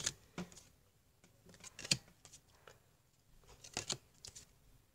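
Trading cards being handled: a few faint, short scrapes and taps as cards are picked up, slid and set down. The clearest is about two seconds in, with a pair near four seconds.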